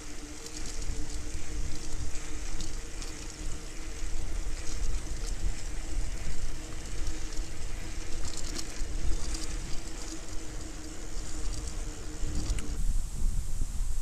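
Riding noise picked up by a camera on a moving folding bicycle: wind buffeting the microphone and tyres rumbling on the path, with a steady low hum and a few light clicks. Near the end the sound cuts abruptly to quieter wind.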